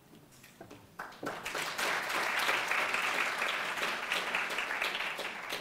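Audience applauding, many hands clapping together, starting about a second in and fading near the end.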